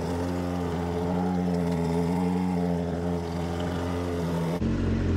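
Yamaha WaveRunner engine idling steadily while fresh water from a garden hose is flushed through its cooling system. The sound changes abruptly near the end.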